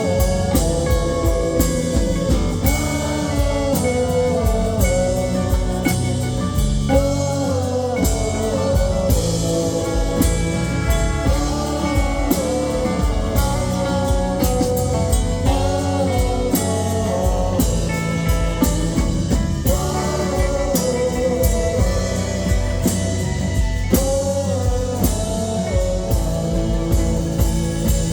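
Live band playing an instrumental jam: a drum kit keeps a steady beat under guitar and bass, with a wavering lead melody line on top.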